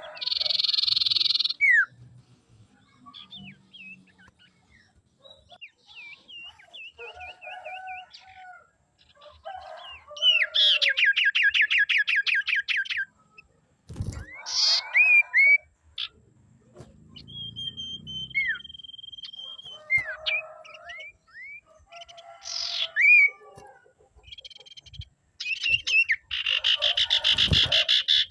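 Common iora calling: loud buzzy rattling trills three times, with short rising and falling whistled notes and one long steady whistle between them. A sharp knock comes about halfway through.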